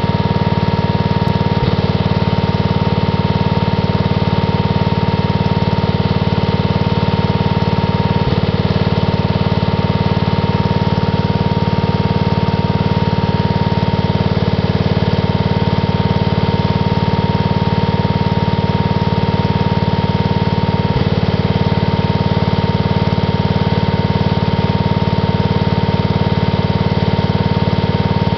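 Onan AJ 1 kW generator's single-cylinder engine running steadily with no load, a steady high tone riding over the even engine note.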